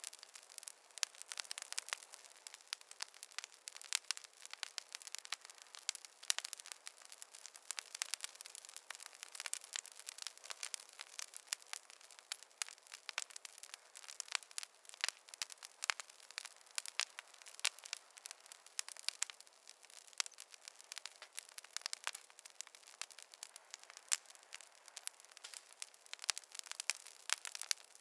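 Campfire crackling: a dense, irregular run of sharp pops and snaps over a soft hiss, with no low rumble.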